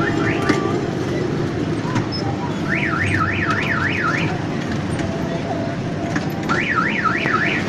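An electronic siren-like tone warbles rapidly up and down, about three to four sweeps a second, in two bouts: one of about a second and a half midway and another starting near the end. Under it runs the steady low rumble of the moving kiddie train ride.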